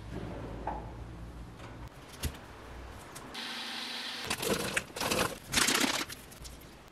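Personal blender running in three short loud pulses, blending pear, frozen berries and yogurt for homemade ice pops.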